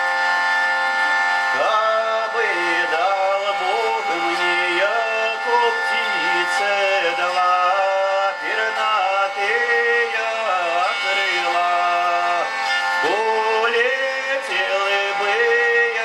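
Hurdy-gurdy playing a steady drone, with a man's voice singing a slow, bending melody over it. The voice comes in about a second and a half in.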